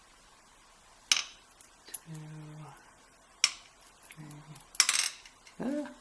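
Small metal lock parts clicking and clattering as the pins are taken out of a Medeco Biaxial lock cylinder and set down. There is a sharp click about a second in, another about three and a half seconds in, and a short clatter of several clicks near five seconds.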